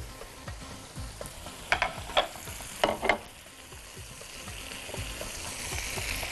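Mussels and grilled vegetables sizzling in a hot pan, the sizzle swelling toward the end, while a spoon knocks and scrapes against the pan a few times as the food is stirred and scooped.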